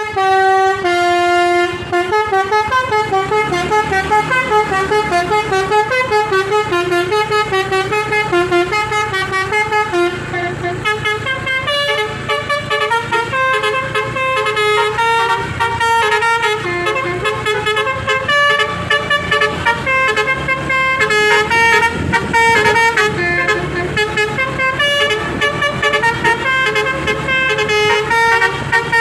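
Basuri telolet musical air horn playing a fast melody of short pitched toots, after a couple of longer held notes at the start.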